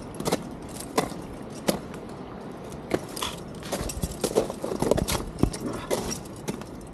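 Ice axe picks and crampon points striking wet waterfall ice in irregular sharp knocks, about one or two a second, as a climber works up the ice.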